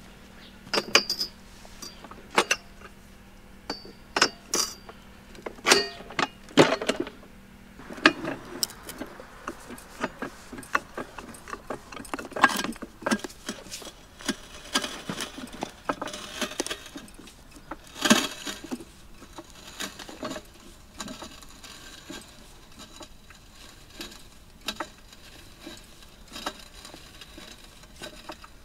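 Pittsburgh 3-ton low-profile floor jack being pumped by its handle to lift a large boulder: irregular metallic clicks and clinks with some louder knocks.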